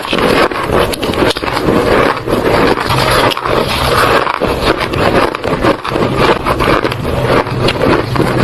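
Mouth biting and crunching squeaky white ice in a dense, unbroken run of loud crackling crunches.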